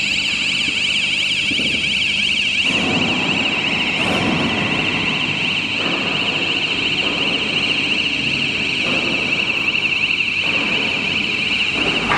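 The electronic warning sounder on a battery-powered rail transfer cart gives a continuous, rapidly warbling high-pitched alarm, which signals that the cart is running. From about three seconds in, a rougher rumbling noise joins under it in uneven stretches.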